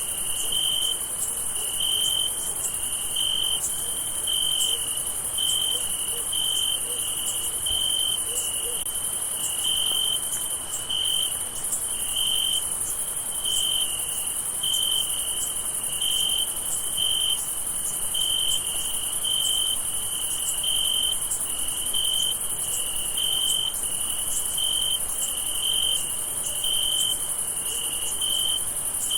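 Crickets chirping at night: one nearby cricket gives short, regular chirps, about one and a half a second, over a steady, very high-pitched chorus of more insects.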